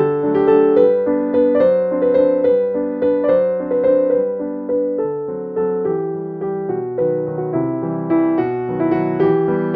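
Background piano music, a steady run of struck notes at an even pace.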